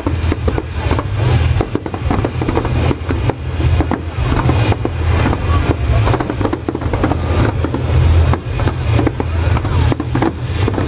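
Fireworks display: a dense, continuous barrage of bangs and crackles with no break.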